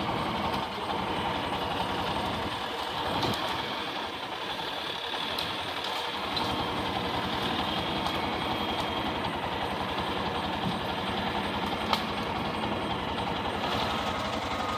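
An engine running steadily at a constant speed, with a brief tick about twelve seconds in.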